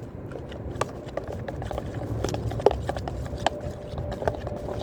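School-glue slime being stirred and worked by hand, making irregular sticky clicks and pops several times a second.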